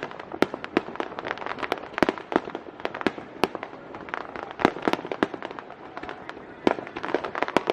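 Aerial fireworks bursting in quick, irregular succession, sharp bangs and pops several times a second over a steady crackling haze.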